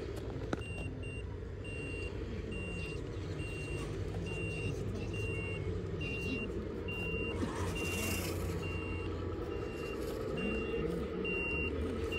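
Sound module of a 1:14 Tamiya Scania 770S V8 RC truck playing reversing beeps, short high beeps at one pitch about one and a half a second, over a steady low engine drone. A brief hiss comes about eight seconds in.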